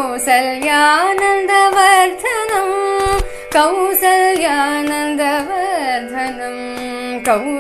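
Solo female voice singing a Carnatic melody, long melismatic phrases with sliding, oscillating ornaments (gamakas) over a steady drone. There is a brief low thump about three seconds in.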